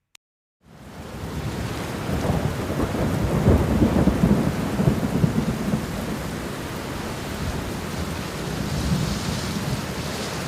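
Steady rain with a long, low rumble of thunder. Both fade in from silence about half a second in, and the rumble is heaviest a few seconds later.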